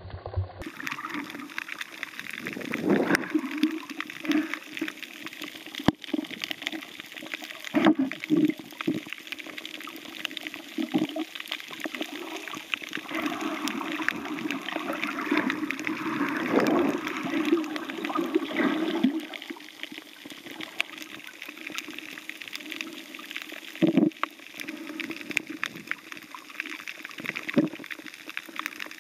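Underwater sound picked up by a camera in a waterproof housing: muffled water rushing and gurgling in uneven surges, with many scattered clicks and crackles.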